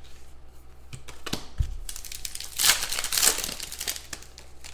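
Crinkling and rustling of trading-card packaging as cards are handled, loudest from about two and a half to three and a half seconds in, with a few light clicks.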